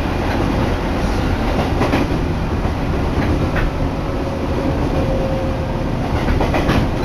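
Inside a moving commuter train: a steady rumble of the wheels and running gear on the track, with a few sharp clicks of the wheels over the rail joints.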